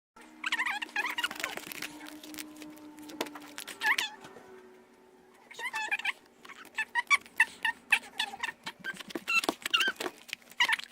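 A pet's high-pitched whining cries, a few short rising-and-falling calls, with quick clicks and taps between them in the second half.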